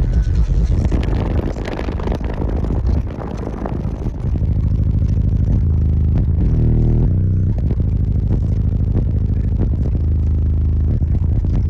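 Bass-heavy music played at extreme level through twenty-four Sundown SA 10-inch subwoofers in a fourth-order box, sounding distorted, with rattling. The level dips briefly about three seconds in, then a steady deep bass note holds from about four seconds on.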